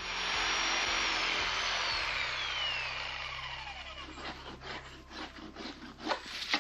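A power tool spinning down: its motor whine falls steadily in pitch over a few seconds under a rushing noise that fades, followed by several short knocks and clatters.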